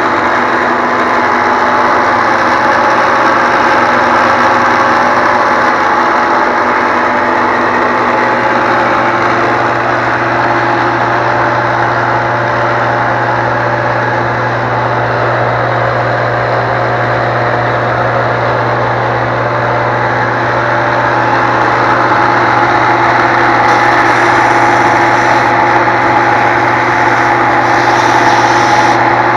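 Homemade 6-by-48-inch Woodgears-design belt sander running continuously, belt-driven from a 2 hp table saw motor. It makes a steady, even machine hum that gets slightly louder near the end.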